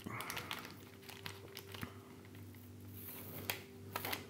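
Thin plastic food packet crinkling and rustling as slices are peeled out of it by hand, with scattered light clicks.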